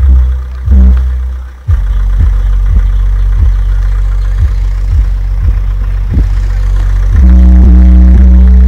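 Very loud deep bass music from a car's 12-inch Pioneer TS-W307 D2 subwoofer, heard from outside the car. Choppy bass hits give way to a steady bass line with a beat about every 0.6 s, which grows louder about seven seconds in.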